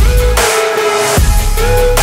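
Electronic music with heavy bass and sliding tones. The bass drops out for about half a second midway under a burst of hiss, then comes back.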